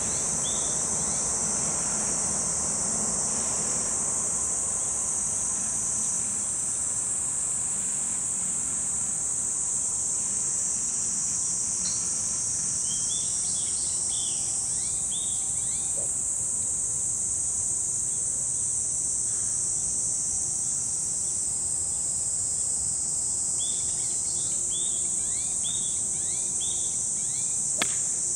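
Steady high-pitched insect drone, with short runs of bird chirps in two stretches. Near the end a single sharp click as a golf club strikes the teed-up ball.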